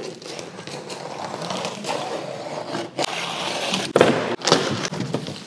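Continuous scraping and rubbing of styrofoam packing as workshop cabinets are unpacked, with a few sharp knocks, the loudest about four seconds in.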